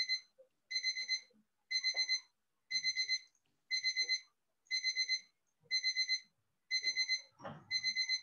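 Electronic alarm beeping in groups of four quick, high beeps, about one group a second, in the steady pattern of a digital alarm clock.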